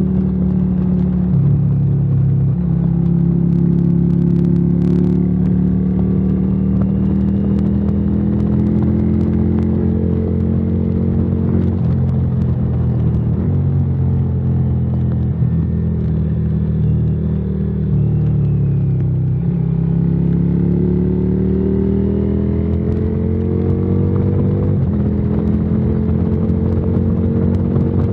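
Yamaha Virago XV535's V-twin engine running through a debaffled exhaust while riding at steady revs. The revs dip briefly about two-thirds of the way through, then climb steadily for several seconds as the throttle is opened.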